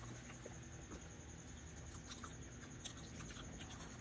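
Faint small ticks and scratches of balut eggs being handled and peeled at a table, with scattered light clicks of shell, over a steady faint high whine.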